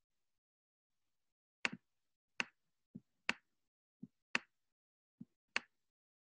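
Faint, sharp clicks of a computer mouse, starting about a second and a half in: five louder clicks and three softer ones between them, irregularly spaced less than a second apart.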